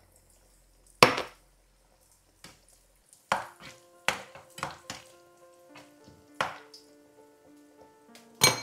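A metal skimmer knocks sharply against a frying pan several times while stirring bread cubes frying in oil. Soft background music comes in about a third of the way through.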